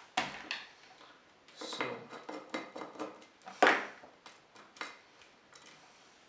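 Light clicks and knocks of hard plastic being handled: the loudspeaker's plastic housing, its wire connectors, and an electric screwdriver set down on the bench, with one louder knock a little past halfway.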